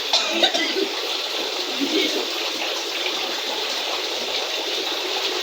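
Steady rushing of flowing water, an even noise without pauses, with a brief voice near the start.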